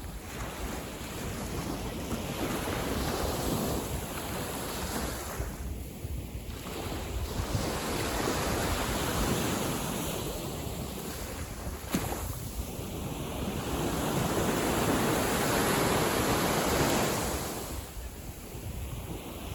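Calm sea: small waves washing in and easing off in surges every few seconds, with wind rumbling on the microphone.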